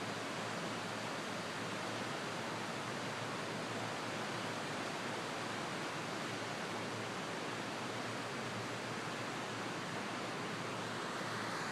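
Floodwater of a swollen river rushing past, a steady, even rush of water.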